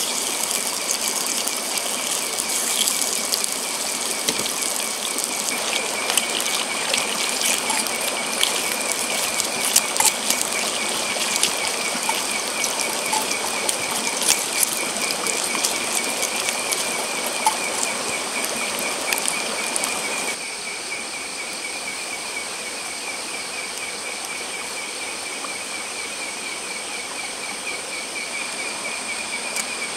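Bacon slices sizzling and crackling in a small cast-iron pan over a campfire grill, stopping after about twenty seconds. Under it, night insects keep up a steady, pulsing high chirr throughout.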